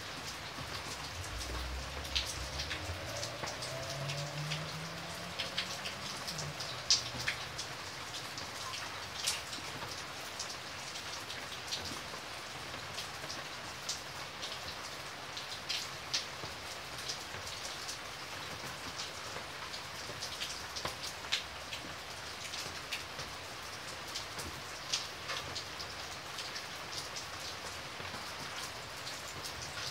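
Steady rain: an even hiss of falling rain with many sharp ticks of single drops splashing, scattered unevenly throughout.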